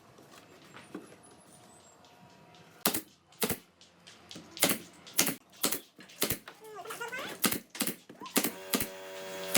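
A series of sharp knocks, irregularly spaced at roughly two a second, starting about three seconds in after a quiet stretch.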